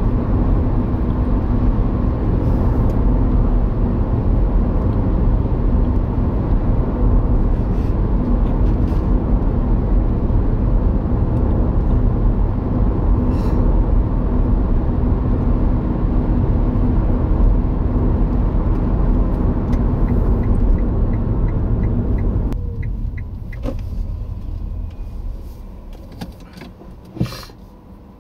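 Car interior road and engine noise while driving at about 50 mph. It falls away about 22 seconds in as the car slows almost to a stop, and a single sharp click comes near the end.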